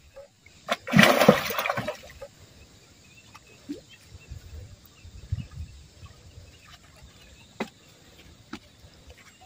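A hooked snakehead (murrel) thrashing at the water's surface: a loud splash about a second in that lasts about a second. Afterwards only faint scattered ticks and taps.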